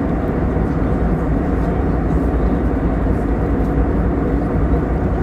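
Steady cabin noise inside an Airbus A321 in flight: a constant low rush of engines and airflow, with no distinct events.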